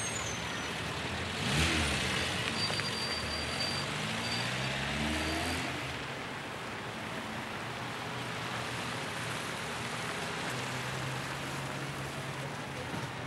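Street traffic: a motor vehicle's engine climbs in pitch as it pulls away or drives past, from about a second and a half in to about five and a half seconds, over a steady hum of traffic.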